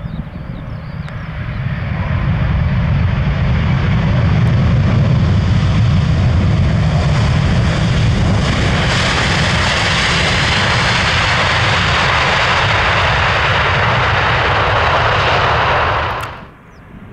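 Jet airliner on approach to land, its engine rumble and hiss swelling over the first few seconds and then holding loud and steady. A brighter, hissier roar joins about halfway through, and the sound cuts off abruptly about a second before the end.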